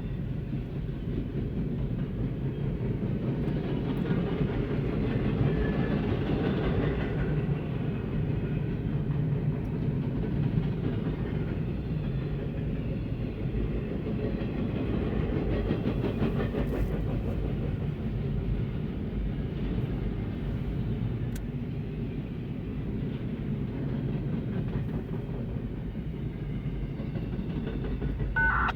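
Norfolk Southern double-stack intermodal train's cars rolling past, a steady rumble of wheels on rail. There is a brief high squeal near the end.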